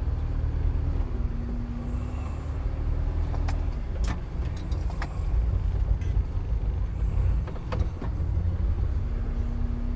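2008 Chevrolet cab-forward tow truck's engine running as the truck drives slowly, heard from inside the cab: a steady low rumble with a thin whine that fades out after about three and a half seconds and returns near the end. A few light clicks and knocks come in the middle.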